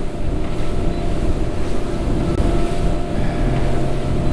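Fishing boat's motor running steadily at cruising speed, about 25 mph, with wind buffeting the microphone and water rushing past the hull. About three seconds in, a low tone in the engine drone grows stronger.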